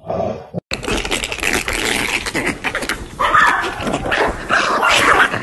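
Dog barking and yelping excitedly over noisy clatter, loudest and most insistent in the second half.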